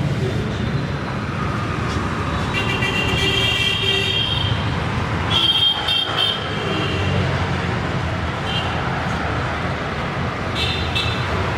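Road traffic running steadily, with vehicle horns honking: one long toot a couple of seconds in, another about halfway, and a short one near the end.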